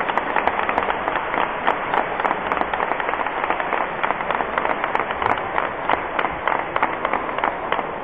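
Audience applauding: many hands clapping steadily and irregularly.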